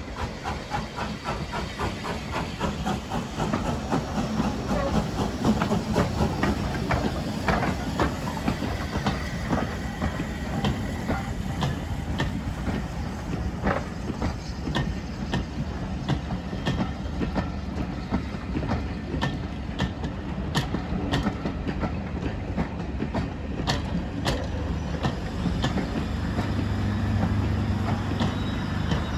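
Steam-hauled train running past, with a fast regular beat and the clickety-clack of wheels over rail joints over a steady rumble, thinning to scattered clicks later. A steady low hum comes in near the end.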